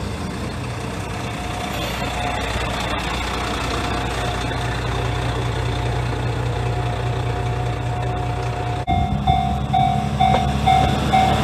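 Diesel railcar engine running steadily as the railcar moves off along the platform. About nine seconds in, a level-crossing alarm bell starts ringing in a quick, even clang, about two and a half strikes a second, over the engine of another diesel railcar rolling across.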